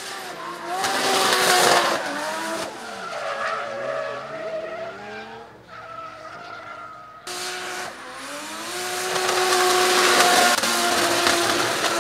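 Turbocharged Mercedes M104 straight-six drift car under hard throttle, its engine pitch rising and falling, with tyres squealing through the slides. About seven seconds in a second, louder pass starts suddenly.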